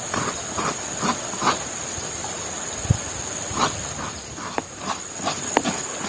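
Coconut being grated by hand on a kukuran, a serrated iron blade fixed to a wooden seat: rhythmic scraping strokes about twice a second, with a short pause and a single knock around the middle. A steady high insect drone runs underneath.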